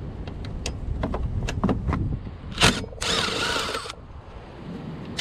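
Hand tools working the bolts that hold a lawnmower engine's electric starter motor: scattered metal clicks, a sharp clank about two and a half seconds in, then about a second of rapid ratcheting rasp as a bolt is loosened, over a low steady rumble.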